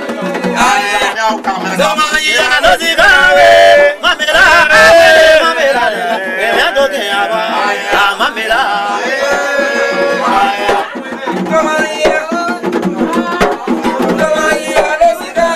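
Traditional Yacouba (Dan) music: voices singing over drums and percussion.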